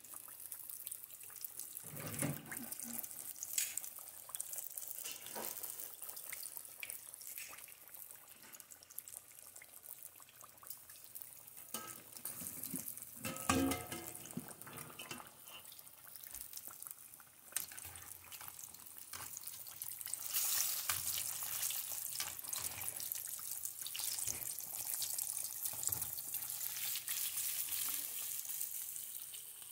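Coated catfish fillets deep-frying in hot oil in a pan: a steady sizzle full of fine crackling pops. It grows louder about two-thirds of the way through. A few knocks break in, the loudest about halfway.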